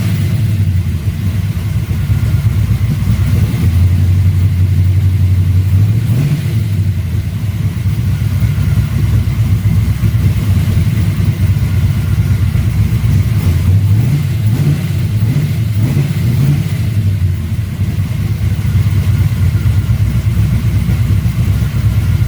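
1955 Chevrolet's engine running from a cold start with a freshly fitted PCV valve, settling at a steady idle and revved up briefly a few times, its pitch rising and falling; it sounds pretty good.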